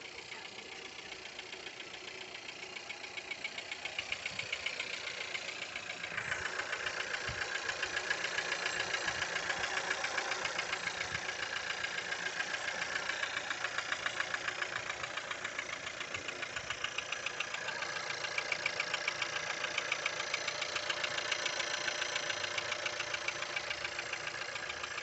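Skoda Octavia A7's 1.4 turbo petrol engine idling with a rapid, regular knocking tick. The tick grows louder over the first several seconds. The owner cannot tell where the rattle comes from.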